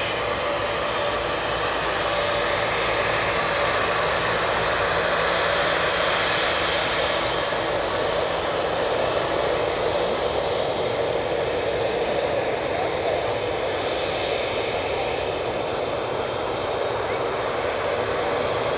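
Boeing 737-800's CFM56-7B turbofan engines running at taxi power as the airliner taxies: a steady jet whine over a continuous rush.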